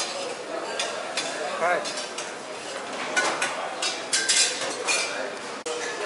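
Cutlery and dishes clinking and clattering at a restaurant buffet: repeated short, sharp clinks over the steady hubbub of a dining room.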